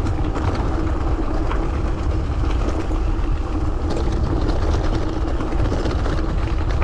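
Steady wind rush and buffeting on a chest-mounted action camera's microphone while riding a gravel bike, with continuous tyre noise and a faint steady hum.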